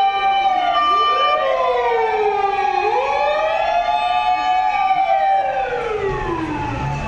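Several emergency-vehicle sirens, from fire engines and ambulances, wailing at once: their slowly rising and falling tones overlap and cross. A low engine rumble comes in near the end.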